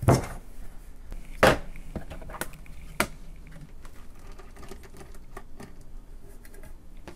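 Handling knocks and clicks on a workbench: a TYT TH-9000D mobile radio turned over and set down, a plastic screwdriver-bit case handled, then light clicking and scraping of a precision screwdriver working at a screw in the radio's cover.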